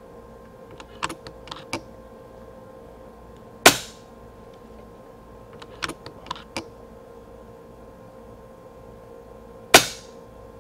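FX Impact X PCP air rifle firing two shots about six seconds apart. A few quick metallic clicks of the side lever, cycled to chamber the next pellet, come a couple of seconds before each shot.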